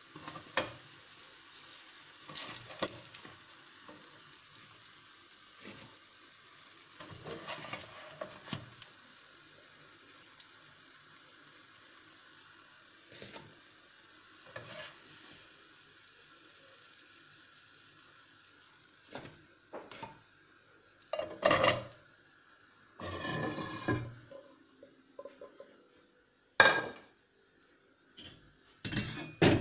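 Pancakes frying in a pan with a faint steady sizzle, and a spatula scraping and tapping against the pan now and then. After the sizzle fades, several louder clatters of utensils and dishes.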